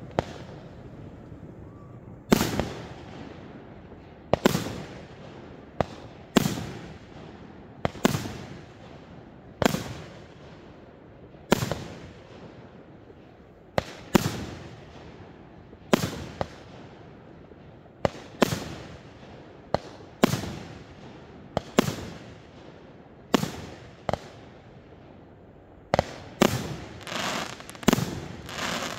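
Aerial firework shells bursting one after another, a sharp bang about every two seconds, each trailing off in an echo. Near the end the bangs come faster, several in quick succession.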